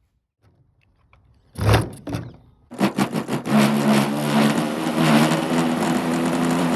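OS 46 LA two-stroke glow (nitro) model aircraft engine being started: two short bursts of cranking, then it catches a little under three seconds in, runs raggedly for a moment and settles into a steady run.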